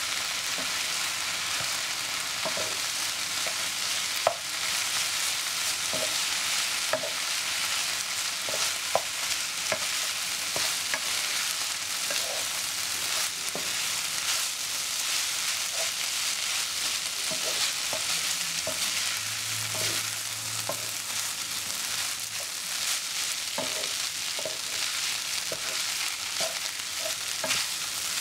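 Rice vermicelli with long beans frying in a nonstick pan, a steady sizzle, while a wooden spatula stirs and tosses it with many light scrapes and taps against the pan.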